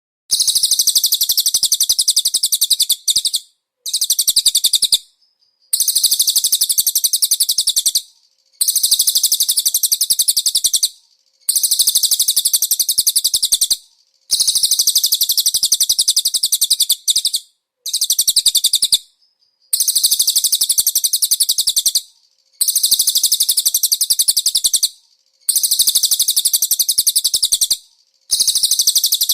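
Small songbird singing fast, high-pitched trilled phrases, each two to three seconds long, about ten in a row with short breaks between them. This is recorded konin song with cililin fill phrases, of the kind played to train caged birds.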